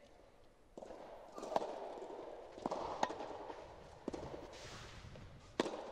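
Soft tennis rally: rackets striking the soft rubber ball back and forth, about six sharp pocks with a short echo, the loudest about a second and a half in and near the end. Between the hits, shoes scuff on the sand-filled artificial-turf court.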